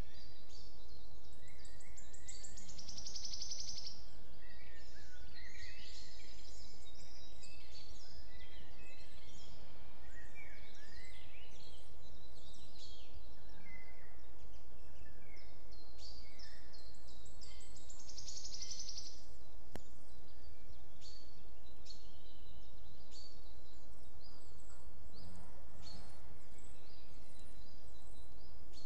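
Mixed forest birdsong from several small birds: many short chirps and whistles, with a rapid high trill a few seconds in and again about two-thirds of the way through, over a steady low rumble.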